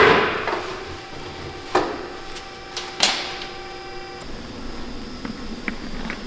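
Two sharp metallic clanks, a little over a second apart, from stainless steel sheet being handled at a mechanical guillotine shear, over a steady hum. A loud rushing noise fades out in the first half second.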